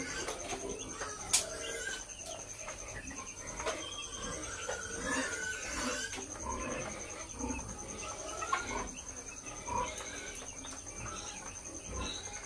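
A flock of broiler chickens clucking and calling, many short calls overlapping, with a single sharp click about a second and a half in.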